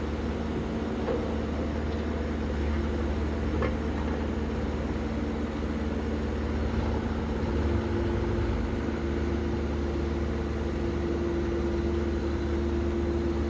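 Heavy road-works machinery engine running steadily at low revs, a low rumble with a steady hum; a second steady tone joins about eight seconds in.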